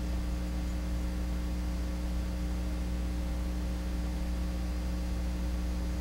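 Steady low electrical hum with a faint hiss, unchanging throughout: mains hum picked up in the recording. No clicks of the knife being handled stand out.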